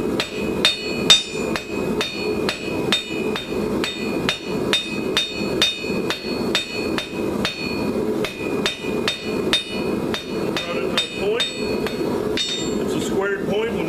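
Rounding hammer striking a hot steel bar on an anvil while forging a taper, a steady run of about two to three blows a second, each with a high ringing note from the anvil. The blows stop near the end.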